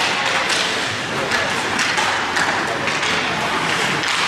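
Ice hockey play: an irregular run of short scrapes and clacks from skate blades and sticks on the ice, over a murmur of spectator voices.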